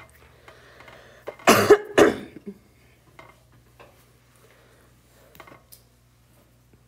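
A person coughing twice in quick succession, about a second and a half in.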